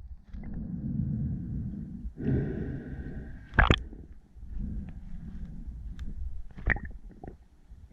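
Muffled rushing and bubbling water as heard underwater, rising and falling in swells, with two sharp clicks, the louder one a little before halfway and another near the end.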